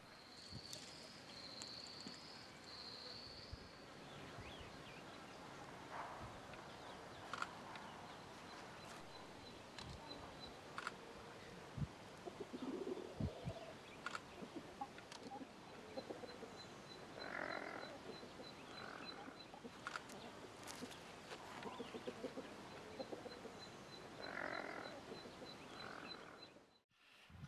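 Quiet outdoor ambience with faint bird calls: a short chirping phrase about a second in, a thin rapid ticking trill now and then, and a few soft calls later on, with scattered light clicks.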